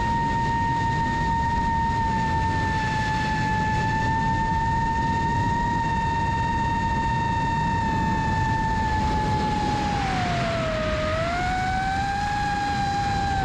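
FPV quadcopter's iFlight XING2 2207 1855KV brushless motors and HQprop Ethix S5 propellers whining at a steady pitch, which sags lower about ten seconds in as the throttle eases and then rises partway back. A steady low rush of wind on the onboard camera's microphone runs underneath.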